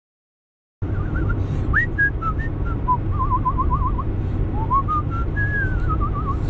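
A person whistling a wandering tune with trills and upward glides over the steady low rumble of a moving car's cabin, starting about a second in.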